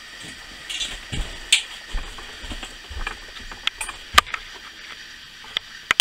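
Irregular knocks, clicks and dull thumps as someone handles small objects and gets up from a cushioned chair, with the sharpest click about four seconds in. Under them runs a steady gas-burner hiss.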